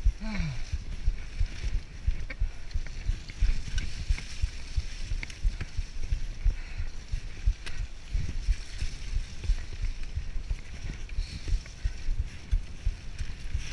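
Mountain bike riding fast down a dirt forest trail, heard from a camera on the bike: a continuous rumble of irregular low thumps from the tyres and the bike jolting over the ground, with a steady hiss above. A short falling tone sounds just after the start.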